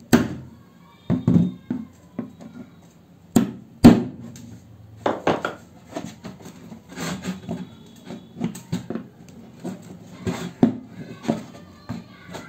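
Irregular knocks, clicks and scrapes as a screwdriver is pushed through the wall of a hollow plastic jerrycan and the can is handled. A few sharper hits stand out, the loudest about four seconds in.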